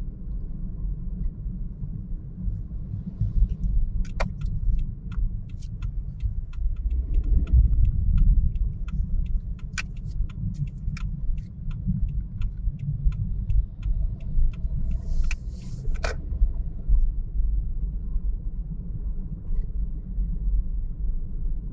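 Steady low road and engine noise inside a moving car's cabin. A turn-signal indicator ticks about twice a second, starting about four seconds in and stopping near the middle, while the car makes a left turn.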